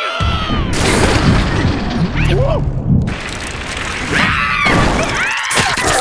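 Cartoon soundtrack: a long rushing blast of noise with squealing, gibberish cartoon-character cries over it and music underneath.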